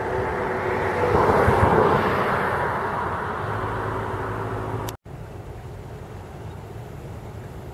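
A road vehicle driving past, its tyre and engine noise swelling about a second in and slowly fading. After a sudden cut about five seconds in, a quieter steady outdoor noise.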